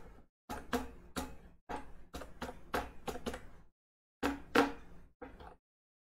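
Computer keyboard keystrokes: about a dozen sharp clicks in irregular runs, with a short pause about two-thirds of the way through.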